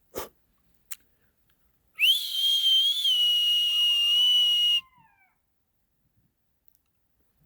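A single long, high whistle, held steady for nearly three seconds after a quick rise in pitch at the start, then cut off.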